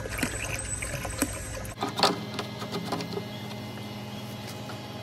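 Water pouring and splashing from a jug into a bucket with a Sahara bilge pump running in it. Just under two seconds in, the pouring stops, a few sharp knocks follow, and the pump's steady hum is left.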